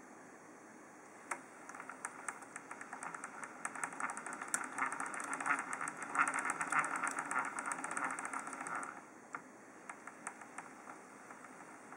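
Abnormal rattling from the one-way bearing of a Kyosho Caliber ZG RC helicopter: a fast, gritty clicking that builds up over several seconds, peaks and dies away near the end, a sign that the one-way bearing is faulty.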